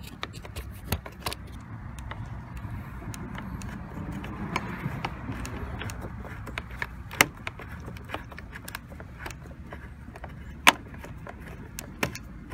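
Small irregular metal clicks and scrapes of a screwdriver with a socket bit turning and seating the screw that holds an alternator fuse in a car's fuse box, with two sharper clicks, one past the middle and one near the end.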